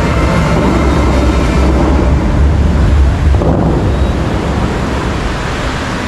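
Dubai Fountain's water jets rushing and splashing down into the lake, a loud spray with a deep rumble that eases about three seconds in as the jets drop; the show's music fades out at the start.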